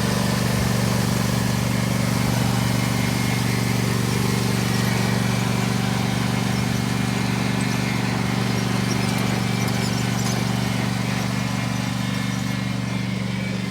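Lawn mower engine running steadily at a constant speed, its drone holding an even pitch throughout.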